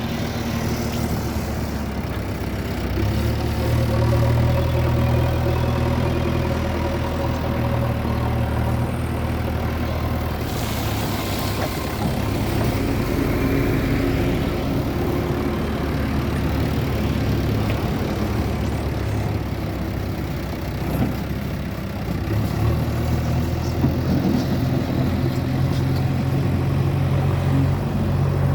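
Diesel engine of a JCB 3DX backhoe loader running under varying load as it digs. The engine note picks up about three seconds in, drops back around twenty seconds in, then rises again. There is a brief rushing noise about ten seconds in.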